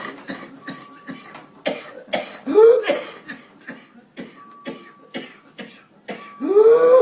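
A person coughing in repeated fits, many short harsh coughs in quick succession. Twice a run of coughs ends in a rising, drawn-in voiced breath.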